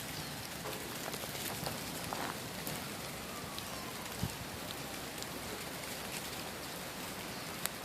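Steady rain falling, an even hiss with scattered single drops ticking. A soft knock about four seconds in and a sharp tick near the end.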